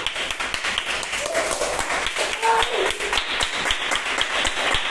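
A group of children clapping quickly and steadily, with a few short excited shouts.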